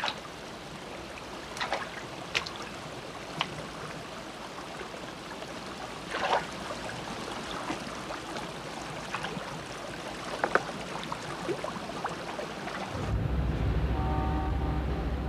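Water splashing and sloshing as people and donkeys wade through a shallow river, with a scatter of sharper splashes from their steps. About 13 seconds in it cuts abruptly to a steady low vehicle engine hum.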